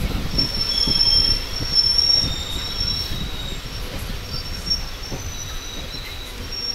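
Train wheels squealing on the rails: several thin, high-pitched squeals come and go over a steady low rumble of the moving train.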